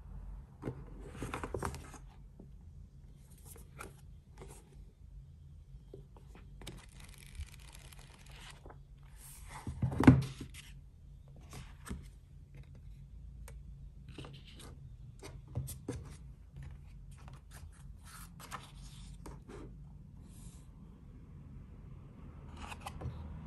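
Hands handling a paperback book and a paper bookmark: paper rustling, covers and pages sliding and tapping in short scattered sounds, with one louder thump about ten seconds in.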